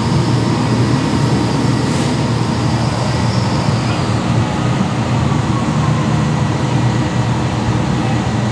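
Fire trucks' diesel engines running steadily: a loud, even low drone with a faint high whine above it that fades about four seconds in.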